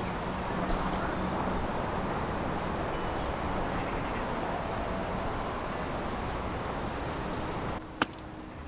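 Steady background noise with small birds chirping, then, near the end, a single sharp click as a golf club strikes the ball on a short pitch shot.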